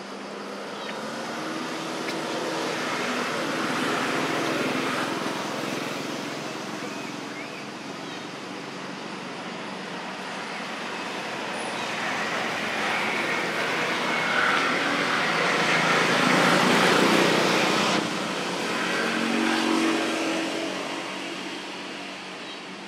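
Noise of passing road traffic, swelling and fading as vehicles go by, loudest a little past the middle and cutting down abruptly soon after.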